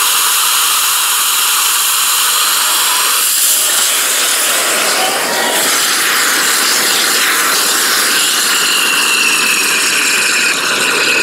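Tribrid rocket motor on a static test stand, nitrous oxide rushing through it in a loud, steady hiss, with a faint, slowly falling whistle from about eight seconds in. The motor is running only as a weak hybrid, burning its ABS grain in the nitrous at almost no chamber pressure, because the alcohol injector never opened.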